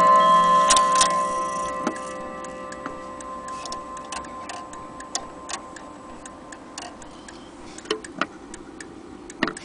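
Gustav Becker Westminster mantel clock: several gong-rod tones ringing and fading away over the first two seconds, then the movement ticking steadily as the pendulum swings. A few louder knocks come near the end.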